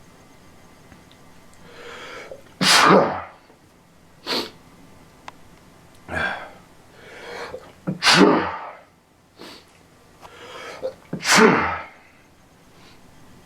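A person sneezing: three loud sneezes, each after a drawn-in breath, about a third, two thirds and four fifths of the way through, with shorter sneeze-like bursts between them.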